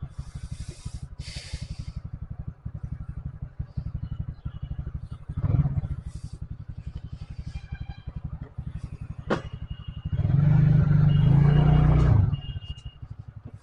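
Motorcycle engine running at low revs, its exhaust pulsing fast and evenly. About ten seconds in it grows much louder for about two seconds, then drops back.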